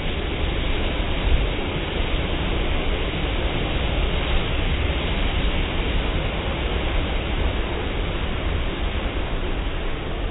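Automatic car wash heard from inside the car: spinning cloth wash brushes sweeping the body while water sprays over it, a steady rushing noise.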